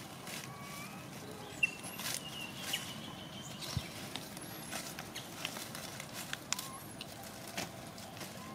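Outdoor ambience with dry leaf litter: scattered clicks and crackles, with several brief high chirps.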